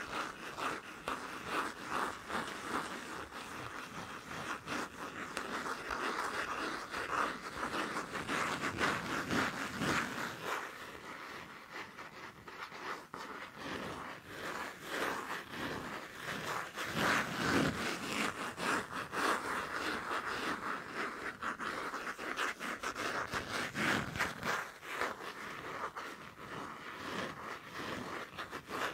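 Fast scratching and tapping on a passport: a dense, unbroken run of quick scrapes and taps.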